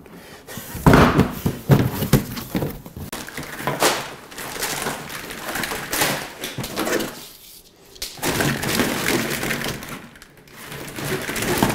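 Coils of black corrugated plastic wire loom rustling, scraping and clattering as they are dragged up out of a cardboard box. A few sharp knocks about a second in, as the loaded box is set down on the floor.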